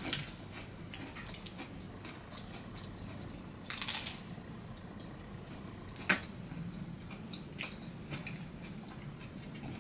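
Quiet eating sounds: pizza with a crisp, cracker-like crust being bitten and chewed. There is a short crunchy crackle about four seconds in and a sharp click about six seconds in.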